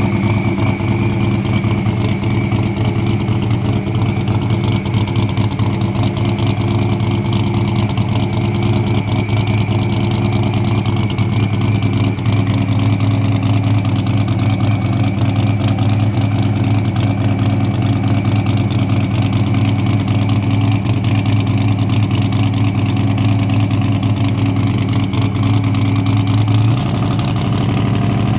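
Chevy II drag car's engine held at a steady pitch during a long burnout, its rear tyres spinning and smoking. Near the end the revs drop.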